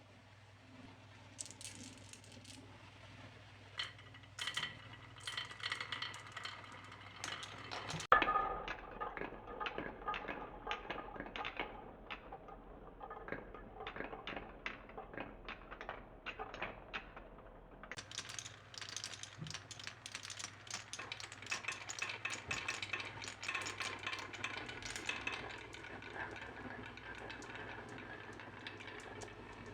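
Marbles rolling and clattering down a wooden marble run: a fast stream of clicks and rattles with a ringing tone as they roll, and one loud knock about eight seconds in.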